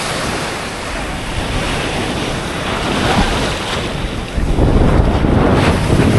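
Surf washing onto a beach, with wind buffeting the microphone; the wind rumble grows louder about two-thirds of the way through.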